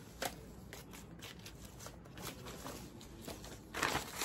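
Paper wrapping rustling and crinkling as a stack of books is lifted out of its packaging, with scattered small clicks and a louder rustle near the end.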